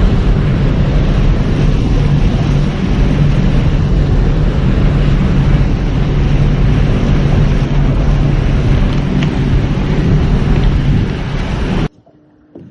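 Motorboat underway: engine running steadily under heavy wind noise on the microphone, cutting off abruptly near the end.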